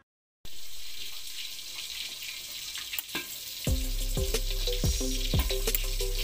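Bangus (milkfish) steak cooking in soy-sauce liquid with onions, giving a steady sizzle. About halfway in, background music with a steady beat comes in under it.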